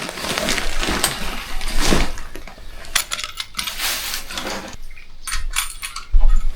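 A packed hiking backpack being handled and lifted to be weighed: rustling, with many light metallic clinks and rattles, and a low thump about six seconds in.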